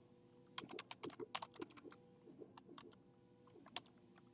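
Faint computer keyboard keystrokes as a password is typed: a quick run of irregular taps from about half a second to a second and a half in, then a few scattered taps and a short pair near the end.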